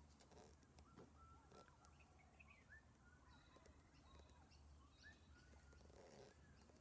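Near silence with faint, scattered bird chirps and short whistled calls.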